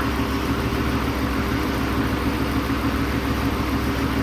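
Dodge 5.7 Hemi V8 with a stage 2 cam idling steadily while it warms up just after its first start following an engine swap, with the car's radiator fans running.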